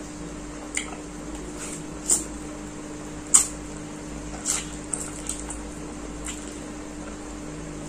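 A person slurping spicy instant noodles off chopsticks: a series of short, sharp, wet slurps, the loudest about three and a half seconds in, over a faint steady hum.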